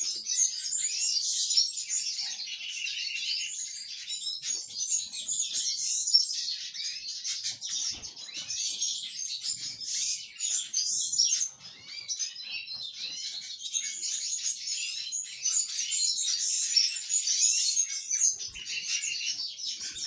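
Many canaries chirping and twittering together, a dense, high-pitched chatter that dips briefly about halfway through.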